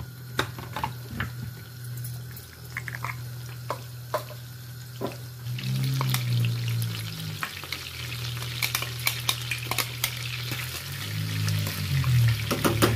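Desi ghee frying in a non-stick pan with scattered pops. About five and a half seconds in, ground garlic and green chilli paste goes into the hot ghee for a tarka, and it turns into a dense crackling sizzle that grows toward the end. A low steady hum sits underneath.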